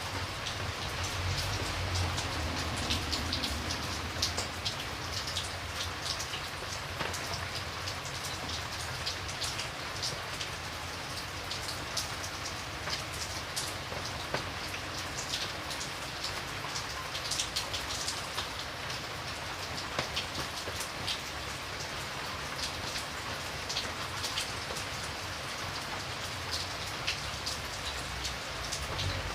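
Steady rain falling on a surface, with many individual drops ticking sharply over a constant patter.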